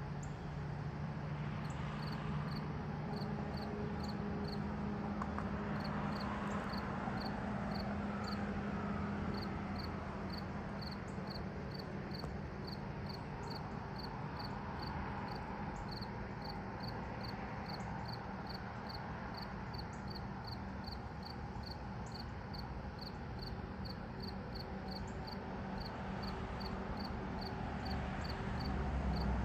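Crickets chirping in a steady, even rhythm, about three short high chirps a second, with a faint faster high-pitched insect ticking above. Underneath runs a low steady hum and a soft wash of background noise.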